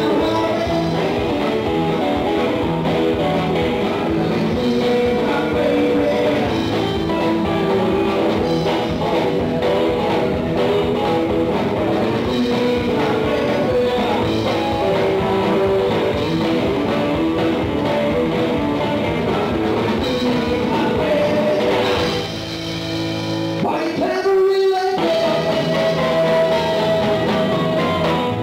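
A live rock and roll band playing a 1950s-style number, with hollow-body electric guitar, bass, drums and a lead vocal. Shortly before the end the band drops back briefly, then comes back in full.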